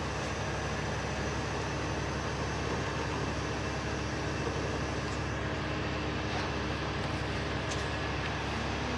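Heavy rotator tow truck's diesel engine running steadily during a winch recovery: a constant low drone with a steady hum.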